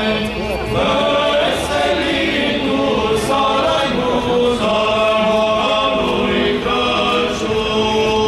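Male choir of Orthodox clergy singing a cappella in several parts, holding long chords that shift every second or so.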